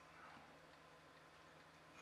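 Near silence: room tone with a faint hum and slight handling of small electronic parts.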